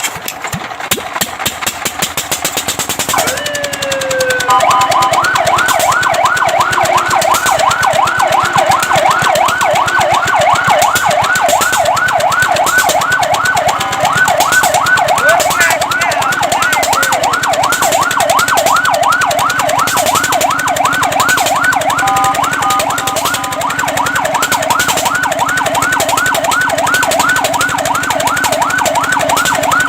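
Fire truck siren: a rattling mechanical noise for the first few seconds, then the siren winds up once and switches to a fast yelp, warbling rapidly up and down about four or five times a second. About twenty-two seconds in it briefly changes to steady stepped tones, then goes back to the yelp.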